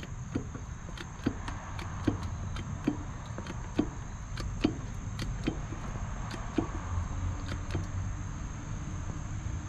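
Hand pump of a 4-ton porta power hydraulic body jack being worked in steady strokes, a sharp click about once a second, as the ram pushes the crushed sheet-metal nose of a VW bus back out. A steady high insect buzz runs underneath.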